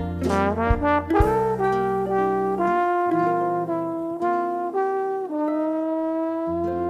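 Slide trombone playing a slow melody in long held notes, accompanied by plucked nylon-string acoustic guitar and cavaquinho. The low guitar notes drop out for a few seconds while the trombone holds a long note, then return near the end.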